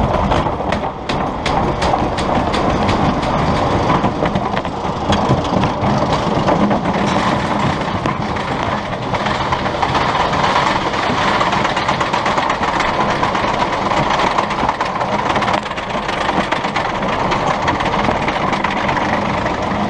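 Amusement-park ride train running along its rails with a steady rattle and clatter, with a run of sharp clicks in the first few seconds.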